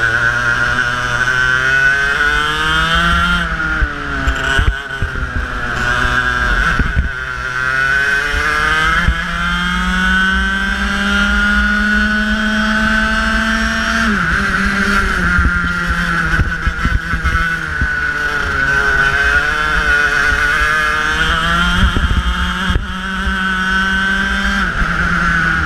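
Racing kart engine heard onboard, its revs climbing along the straights and falling away when the driver lifts for the corners, over wind rumble on the microphone. The longest climb lasts about five seconds, then the revs drop sharply about halfway through.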